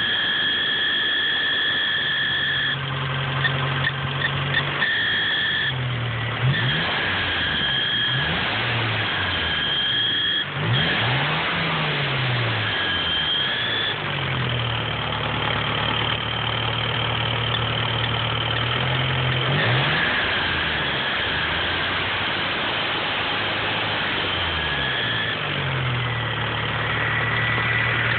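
Car engine idling and being revved up and down several times, with a high-pitched squeal from the belt drive that comes and goes and shifts pitch slightly. The owner suspects a pulley or the belt.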